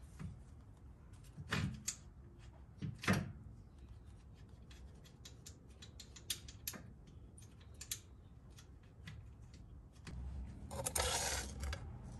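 Hand work fitting a rear sway bar and its bushing bracket under a car: scattered small metallic clicks and two louder knocks early on, then a longer rubbing noise near the end.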